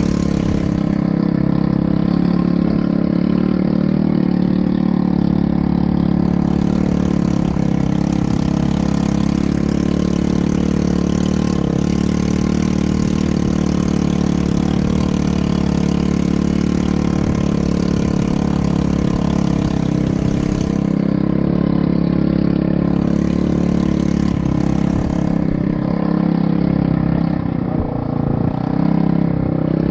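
ATV engine running at a steady pitch.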